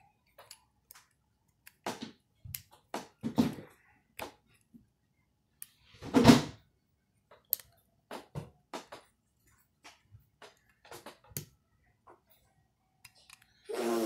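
Scattered small clicks, taps and knocks of hands working the plastic parts and spring of an air compressor pressure switch, trying to snap them into their seats, with one louder handling noise about six seconds in.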